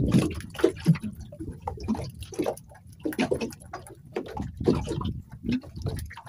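Water lapping and slapping against the side of a small boat's hull in irregular splashes.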